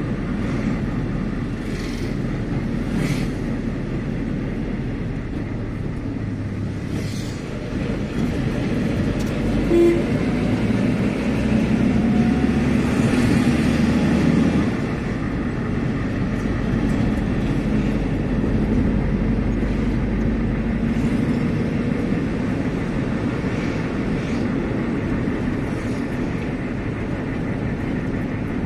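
Steady low rumble of a vehicle driving along a road, engine and tyre noise heard from on board. A few brief clicks come in the first seconds, and it grows a little louder around the middle.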